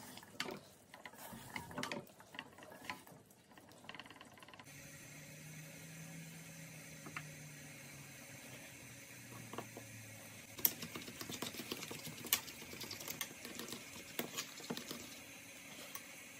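A wooden spoon stirring and scraping a chicken, pea and cheese filling in a steel pan. Then a fork mixes flour and water into a paste in a ceramic bowl, clicking against the bowl rapidly from about ten seconds in.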